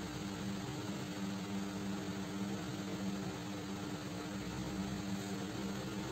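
Steady machine hum with an even hiss, holding at one pitch without change.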